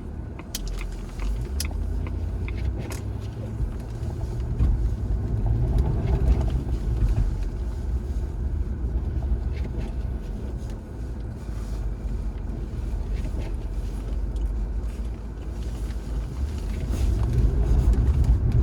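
Supercharged Jaguar XJR's 4.0-litre V8 driving on a snowy road: a steady low engine and road rumble that swells and eases with the throttle and builds near the end.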